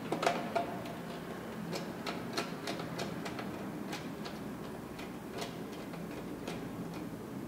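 Irregular light clicks and ticks as a screwdriver works the terminal screws of MCBs in a plastic distribution board and the wires are handled, the sharpest click about a quarter second in.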